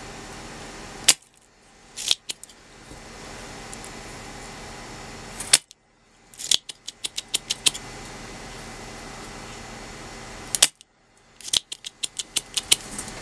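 Soldering-iron work on a circuit board: short runs of small sharp clicks and taps, with one louder click about a second in, over a steady low background hiss that cuts out abruptly between runs.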